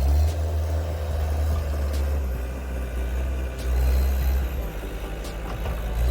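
Caterpillar 277B compact track loader's diesel engine running under work, a low steady drone that dips briefly about five seconds in.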